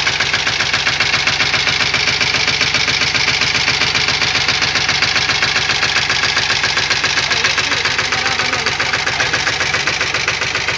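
Single-cylinder diesel engine of a three-wheel mini tractor running steadily with a fast, even knock, pulling a tine cultivator through the soil.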